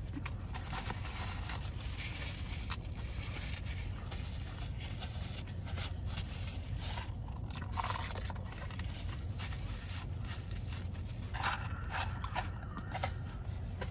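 A man chewing fast-food fries and nuggets, with short crunches and the rustle of a paper fry carton as he handles it and reaches in, over a steady low hum.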